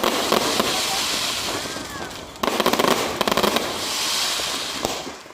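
Fireworks going off in rapid crackling volleys over a steady hiss. A fresh barrage starts suddenly about halfway through, and the sound fades out at the very end.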